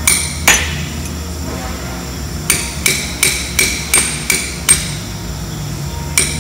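Ball-peen hammer striking a hand-held steel tool against the steel wheel hub of an M923A2 5-ton truck, each blow ringing metallically: two blows at the start, then after a pause a quick run of about seven blows, roughly three a second. The blows are knocking the central tire inflation fitting off the hub flush with the flange so the system can be plugged off.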